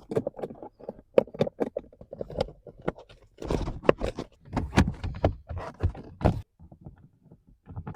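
Plastic cover of a BMW F46 Gran Tourer's cabin air filter housing being fitted back into place by hand: a string of irregular plastic clicks, knocks and scrapes, busiest from about three and a half to six and a half seconds in.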